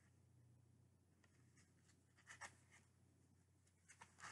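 Near silence, broken by a few faint scrapes and rustles of glossy tarot cards being slid through the hands: one about halfway through and a couple near the end.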